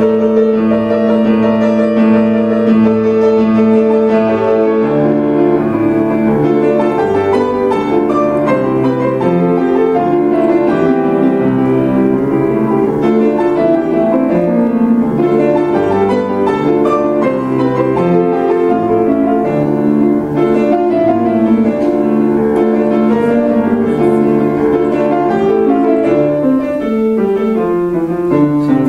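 Two pianos, one a Petrof grand, playing a classical duet: sustained chords under a moving melody, with a falling run of notes near the end.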